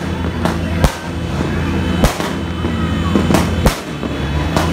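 Aerial fireworks bursting: about five sharp bangs, irregularly spaced, over a steady low rumble.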